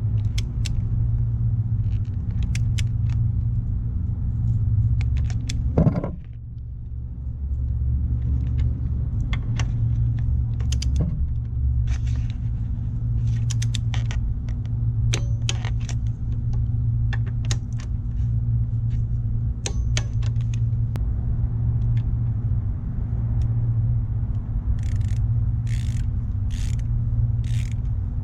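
Hand tools working the bolts on a motorcycle's front brake caliper as they are torqued down: scattered sharp metal clicks and taps, with a run of evenly spaced clicks near the end, over a steady low hum.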